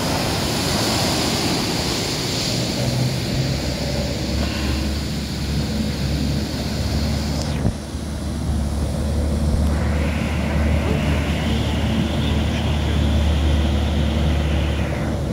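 Waves breaking and surging, with a fishing boat's engine running as a steady low drone under the surf, and wind buffeting the microphone. The hiss of the surf changes abruptly about halfway through.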